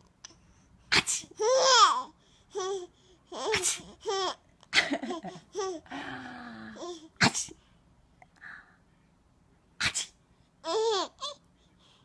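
A baby giggling and babbling in short high-pitched bursts, broken by several sudden, sharp pretend sneezes ('achoo') in a sneezing game.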